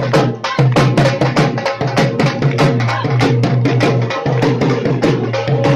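Loud Punjabi folk music with fast, dense drumming over a steady low bass note that drops out briefly twice.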